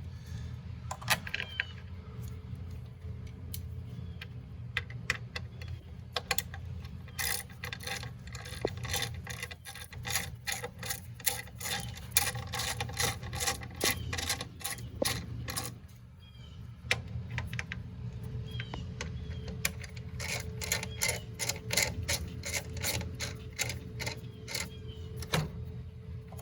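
Ratchet driver with a T30 Torx bit clicking as headlight mounting screws are tightened down, in two long runs of quick, even clicks with a short pause between them.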